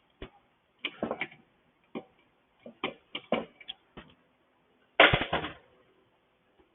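Metal hand tools working on a small engine's bolts: a scatter of short, irregular clicks and clinks of the socket wrench on metal, with a louder clatter about five seconds in.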